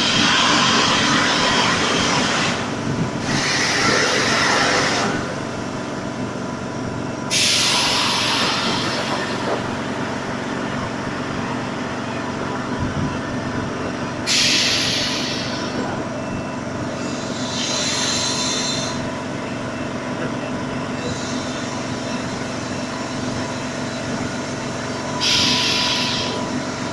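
Air compressor running with a steady mechanical hum, broken by repeated bursts of hissing air, about six of them, each a second or two long and starting abruptly.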